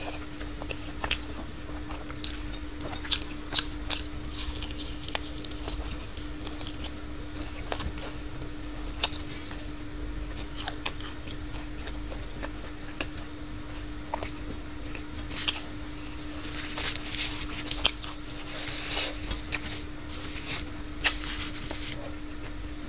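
A person chewing food close to the microphone, with scattered sharp smacking and clicking mouth sounds. A faint steady low hum runs underneath.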